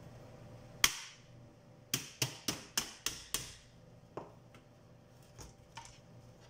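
Sharp clicks and snaps of the plastic housing of a Biosys BPM 200 pulse oximeter as its cover is pulled off: one loud snap about a second in, then a quick run of six clicks, with a few fainter ones after.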